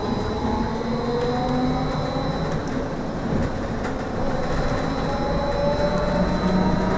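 Trolleybus cabin noise while driving, with the electric traction motor whining in several tones that slowly rise in pitch as it picks up speed, over a thin steady high-pitched tone.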